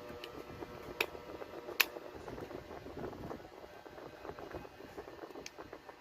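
Faint rustling and scraping with two sharp clicks, about one second and two seconds in.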